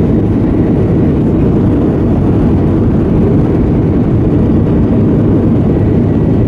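A Boeing 737-800's CFM56 jet engines heard from inside the cabin over the wing while the airliner moves on the ground: a loud, steady low rumble with a faint high whine.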